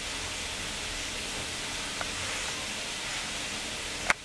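Steady background hiss, with a small click about two seconds in and a sharp click near the end.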